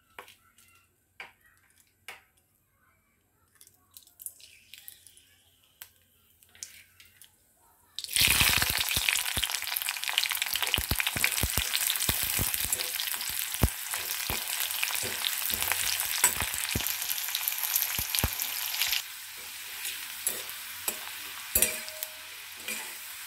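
Onion and whole spices dropped into hot oil in a kadai: after a quiet start with a few faint clicks, the oil bursts into a loud sizzle about a third of the way in. A steel spatula scrapes and clicks against the pan as they are stirred, and the sizzle settles to a quieter level near the end.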